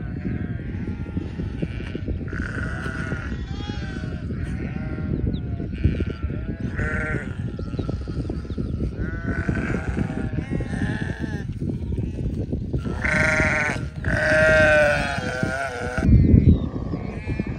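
A flock of sheep bleating, many wavering calls overlapping, loudest about thirteen to fifteen seconds in, over a steady low rumbling noise. There is a loud low thump about sixteen seconds in.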